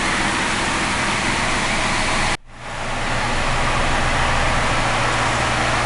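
Steady mechanical running noise with a low hum, which cuts off abruptly about two and a half seconds in and fades back up.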